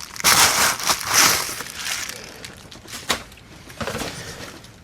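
Plastic packaging crinkling and rustling as a graphics card is unwrapped, loud for about the first two seconds. It then quietens to handling noise with a couple of sharp clicks about three seconds in.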